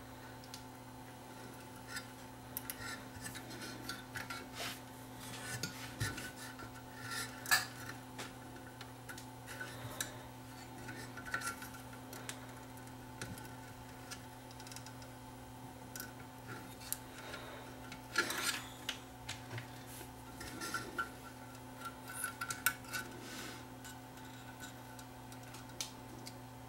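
Small clicks, taps and scraping from hands handling wires and parts in a tube radio chassis, in irregular clusters over a steady low hum.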